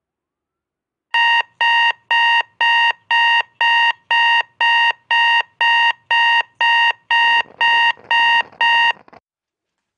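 Digital alarm clock beeping, a steady high-pitched beep repeated about twice a second, which cuts off suddenly near the end as it is switched off.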